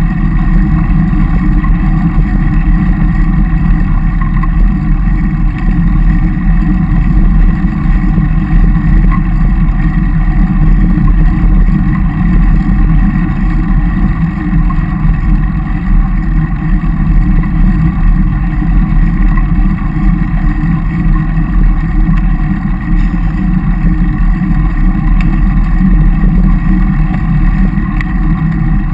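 Steady wind rumble on a bike-mounted camera's microphone while riding a road bicycle, mixed with tyre noise on tarmac.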